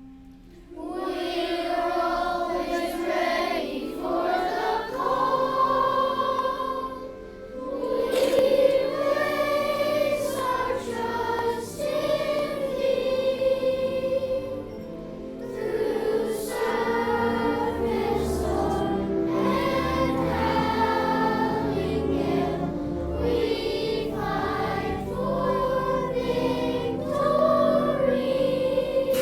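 Children's choir singing a patriotic song over instrumental accompaniment. The singing starts about a second in.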